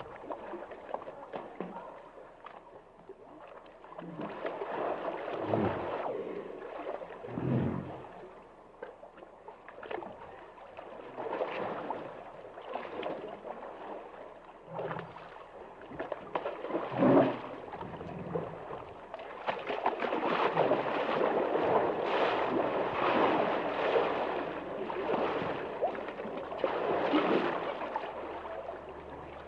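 Hippos in a river: water sloshing and gurgling, with a few short, low grunts.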